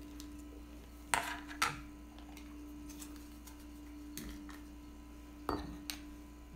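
Plastic lid being pried off a yogurt tub, with two sharp plastic clicks about a second in, then lighter handling knocks and another pair of clicks near the end as the tub is handled. A steady low electrical hum runs underneath.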